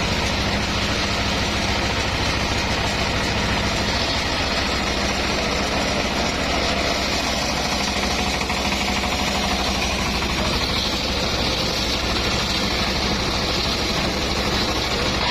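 Homemade circular sawmill rig running steadily: its engine and spinning saw make one continuous, even sound.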